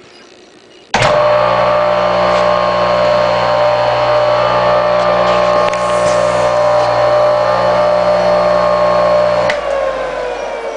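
Craftsman flex-drive table saw motor, a 1-1/16 HP 120-volt capacitor-start induction motor, switched on about a second in, coming up to speed at once and running with a steady hum. It is switched off near the end and coasts down with a falling whine.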